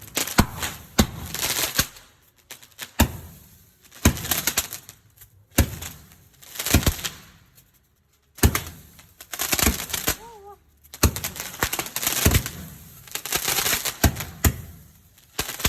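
Fireworks going off: rapid sharp bangs, each followed by crackling, in clusters every second or two, with brief lulls about two and eight seconds in.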